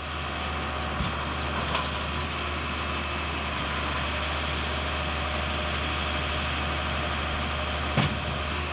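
Tractor engine running steadily at a standstill, driving a round baler as it wraps a finished bale in net. A sharp knock about a second in and another near the end.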